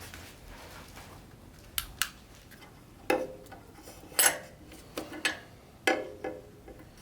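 Metal clinks and clicks as the blade-setting tool and the portable planer's knife and cutterhead are handled, about eight short sharp contacts at uneven intervals, while the blade setting is checked.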